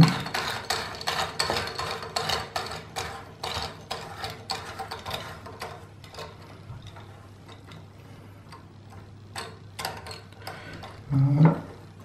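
Push-button flush of a toilet cistern being screwed into the lid by hand: a rapid run of ratcheting clicks as it is turned, thinning out after about six seconds, then a few more clicks and a short low thump near the end.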